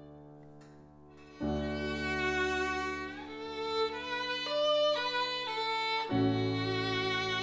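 Violin and grand piano playing a slow melody together. After a soft, fading moment, a full piano chord enters with the violin about a second and a half in. The violin line then climbs step by step, and a new deep chord comes in near the end under a wavering violin note.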